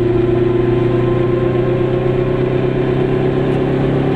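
Glas Goggomobil's two-stroke twin-cylinder engine running steadily as the car drives along, heard from inside the small cabin.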